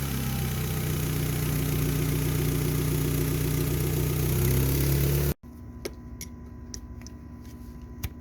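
Mitsubishi car engine running steadily, its pitch rising slightly after about four and a half seconds. It cuts off abruptly about five seconds in, leaving a quieter stretch with a few light clicks.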